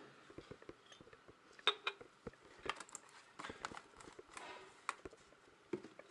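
Scattered light clicks, taps and knocks of small containers and tools being handled while oil and additive are measured out, with a few sharper knocks about two and five seconds in.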